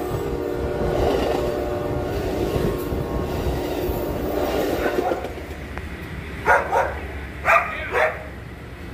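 A train running at a station platform, its horn tones dying away over the first few seconds, then a dog barking four times in two quick pairs about six and a half seconds in.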